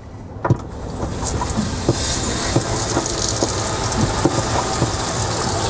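Pumped water rushing from a boat livewell's inlet fitting into the empty tank as its valve is opened, building up over the first couple of seconds to a steady hissing gush with small splashes.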